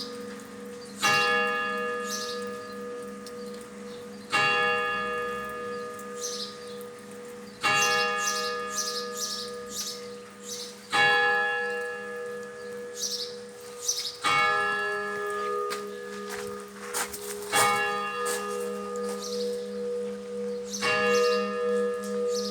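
Church bells tolling: slow, evenly spaced strikes about every three seconds, each ringing on into the next.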